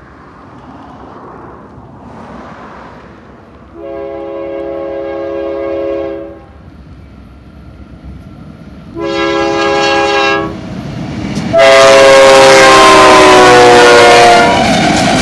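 Air horn of a BNSF freight train's lead locomotive, a GE Dash-9C44-9W, sounding three blasts of several tones at once: a long one about four seconds in, a shorter one near the middle, then the loudest, whose pitch drops as the locomotive passes. The locomotives then rumble by close.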